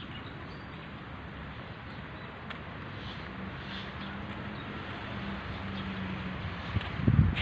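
Outdoor park ambience: a steady hiss of background noise with a faint engine hum of a passing vehicle in the middle. Wind starts buffeting the microphone near the end.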